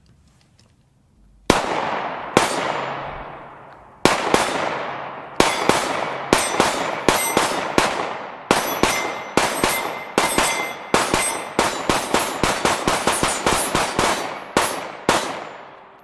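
Two Sphinx SDP 9mm pistols fired side by side, shots from both guns overlapping in a long, uneven string. Each shot trails off in a long echo. After a second and a half of quiet the shooting starts slowly, picks up to several shots a second, and stops about fifteen seconds in.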